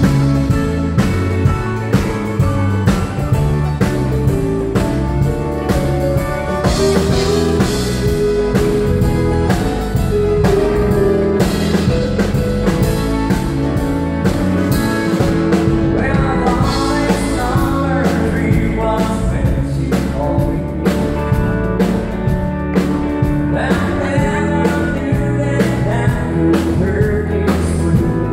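Live country band playing with a steady drum beat: electric guitar, acoustic guitar, pedal steel guitar and drum kit, with a man singing over them.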